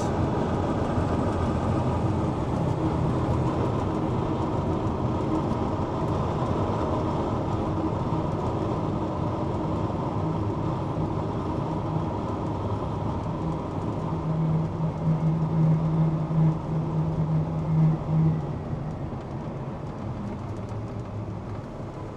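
Medium-duty tow truck's diesel engine and tyres at highway speed, heard from inside the cab as a steady drone. The engine note grows louder for a few seconds past the middle. Near the end the noise falls away as the truck slows to pull in behind the broken-down truck.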